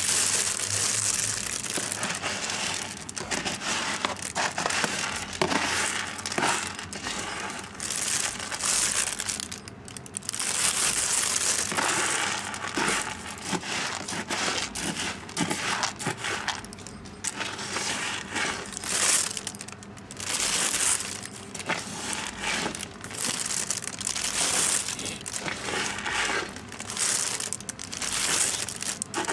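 A thin plastic bag crinkling and rustling in irregular bursts, mixed with a plastic litter scoop scraping and sifting through granular cat litter.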